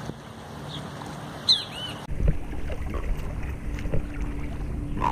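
River water lapping and splashing at a rocky bank, with wind on the microphone. There are a few short high chirps in the first two seconds. About two seconds in the sound changes abruptly to a closer, rumbling wind-and-water noise with a few knocks.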